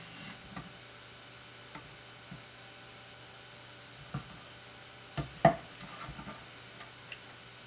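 Scattered small clicks and taps of pin bones being pulled from a sea bass fillet with fish-bone tweezers, the loudest pair about five seconds in. A low steady hum runs underneath.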